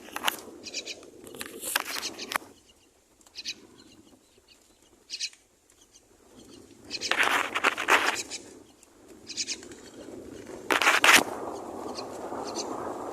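Common myna nestlings giving harsh, raspy begging calls in several bursts, the loudest near the end, followed by a steady rushing noise.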